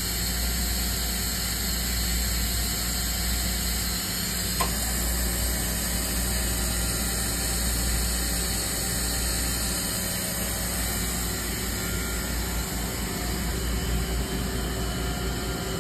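OKK VP9000 CNC vertical machining center running with a steady low hum and hiss, and a single click about four and a half seconds in.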